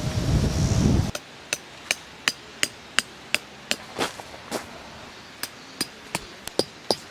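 Hammer blows ringing on metal, about three a second at first and then more spaced out, after about a second of wind buffeting the microphone.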